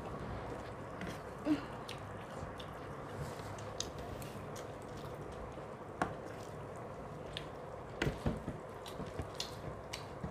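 Quiet eating sounds: scattered taps and clicks of spoons against plates. The sharpest comes about a second and a half in, and there is a cluster of them around eight seconds.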